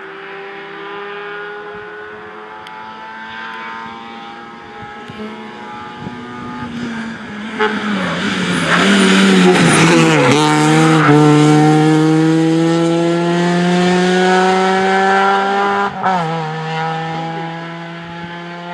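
Opel Astra rally car's engine at full throttle, its note climbing steadily. It drops back at gear changes about halfway through and again near the end. It is loudest about halfway through as the car passes close.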